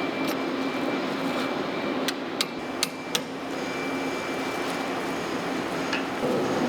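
Factory machinery running steadily with a hum, broken by several sharp metallic clicks, four of them in quick succession in the middle.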